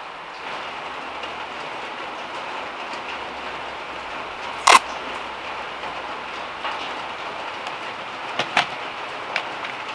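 Steady hiss of heavy rain on a VW Beetle's metal roof. One loud, sharp knock about halfway through, and a few light clicks near the end.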